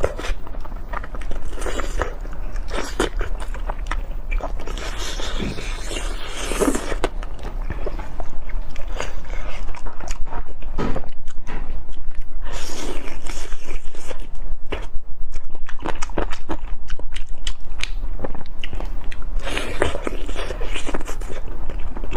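Biting and chewing cola chicken wings, with many irregular wet smacks and clicks that grow louder about eight seconds in.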